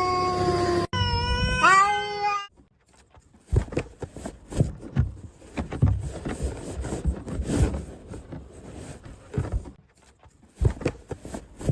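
A domestic cat meowing and yowling, its pitch sliding up and down, just after a held tone cuts off abruptly. This is followed by several seconds of irregular knocks, thumps and rustling.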